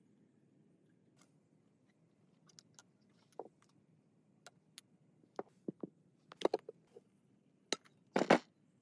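Scattered clicks, taps and knocks of small parts being handled at a workbench. They come more often toward the end, with the loudest, a short clatter, near the end.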